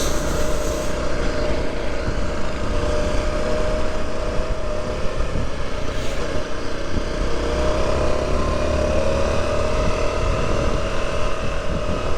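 Motorcycle engine running steadily while riding a rough dirt trail, with a low rumble underneath.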